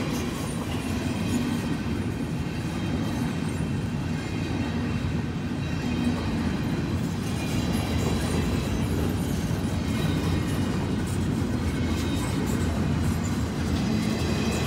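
Freight train cars rolling past at speed: a steady rumble and clatter of steel wheels on rail from empty double-stack well cars and then gondolas.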